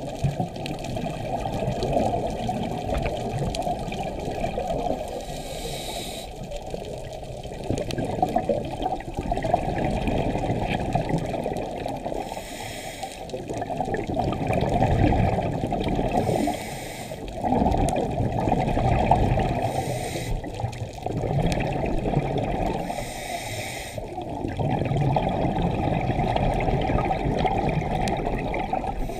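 Scuba diver breathing through a regulator underwater: bubbling exhaust that swells and fades, broken by five short hisses as the regulator delivers air on each inhale.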